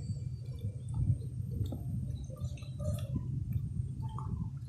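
A person chewing a mouthful of seafood papaya salad with rice noodles close to the microphone, with scattered short wet clicks and smacks of the mouth.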